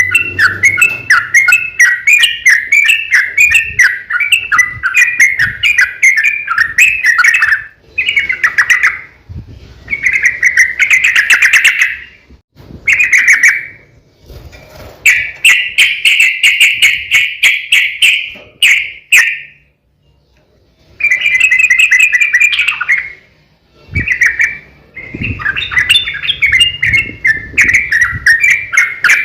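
Yellow-vented bulbul (trucuk) singing long, rapid chattering phrases in a run of bursts with short breaks between them, the longest break a bit past two-thirds of the way through.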